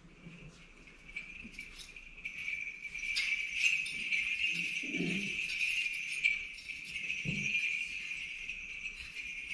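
Small metal bells jingling in a continuous shimmer that grows louder about three seconds in, with two soft low thumps later on.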